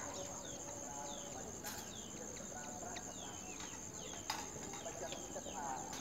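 Night ambience: insects keep up a steady high-pitched drone, with repeated short falling chirps above faint wavering lower calls. Two sharp clicks come through, one about two seconds in and a louder one past four seconds.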